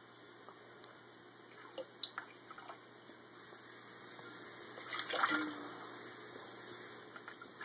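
A thin stream of tap water runs into a glass bowl of water in a stainless steel sink, with a few light splashes early on. About a third of the way in the water gets louder and splashier as a green-cheeked conure flaps into the bowl and dunks herself, loudest around the middle.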